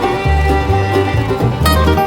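Bluegrass background music with banjo over bass notes that change about twice a second.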